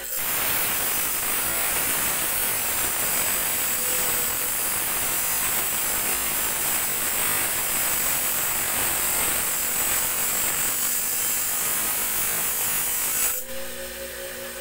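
Steel tari (gamecock spur blade) pressed against a spinning abrasive grinding disc: a steady, high grinding noise of metal on the wheel. It stops about 13 seconds in, leaving the even hum of the grinder's motor.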